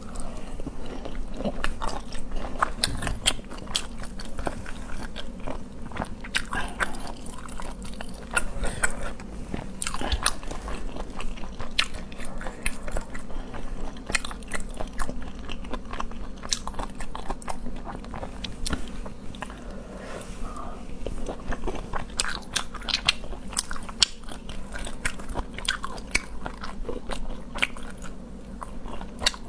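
A person eating seafood close to the microphone: continuous chewing with many irregular, sharp crunches and crackles.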